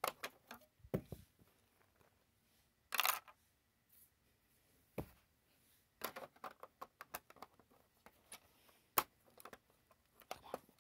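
Plastic building bricks of a brick-built tank model clicking and rattling as parts are handled and pressed into place. It comes as scattered short clicks, with a brief louder rustle about three seconds in and a sharp click near the end.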